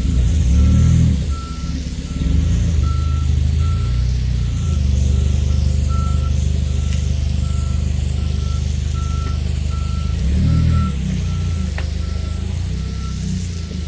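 A machine's engine running with a reversing alarm beeping steadily, a little under two beeps a second. The engine revs up briefly near the start and again about ten seconds in.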